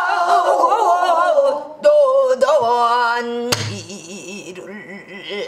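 A woman singing pansori in a full voice with wide vibrato and long held notes, accompanied on a buk barrel drum. A single sharp drum stroke comes a little past halfway, after which the singing goes on more quietly with a steady, pulsing waver.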